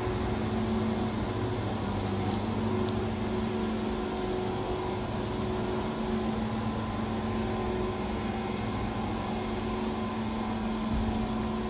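Electric air blower running steadily, keeping an inflatable tent inflated: a constant motor hum under a rushing of air.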